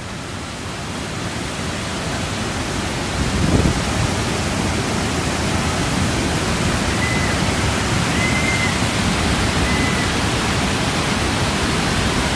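Loud, steady roar of a flash-flood torrent of rushing water.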